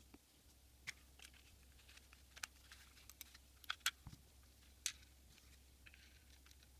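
Irregular sharp clicks and taps from a computer mouse being handled as it is reassembled and its newly replaced click switch is tested, the loudest a quick pair a little under four seconds in and another about a second later.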